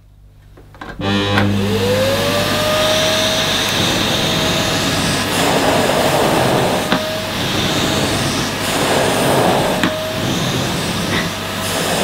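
Kärcher VC 6 bagged cylinder vacuum cleaner switched on about a second in, its 600 W motor spinning up with a rising whine and then running at maximum suction. The floor nozzle is pushed over plush carpet, with two louder swells of rushing air. At this suction the nozzle grips the carpet and is very hard to push.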